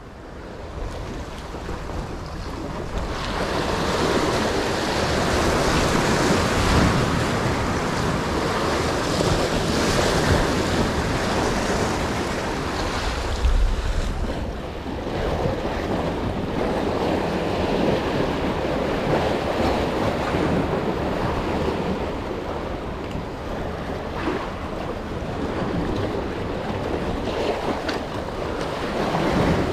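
Sea surf surging and washing over the concrete tetrapod blocks of a breakwater, a steady rushing that builds over the first few seconds, with wind buffeting the microphone.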